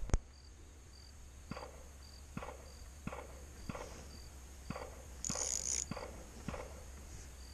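Faint cricket chirping, short high chirps about twice a second, with light knocks about once a second and a brief hiss about five seconds in.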